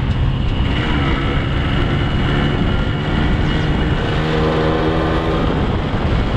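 Yamaha RX 135 motorcycle's two-stroke single-cylinder engine running while the bike is ridden along, its note swelling and easing with the throttle.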